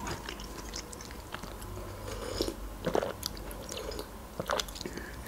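Close-miked mouth sounds: quiet chewing and swallowing, with small wet clicks, then sips of tea from a mug.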